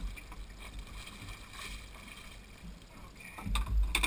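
Water splashing and sloshing against the side of a small boat as a hooked permit is handled at the surface. Near the end comes a louder burst of splashing as the fish is lifted out of the water.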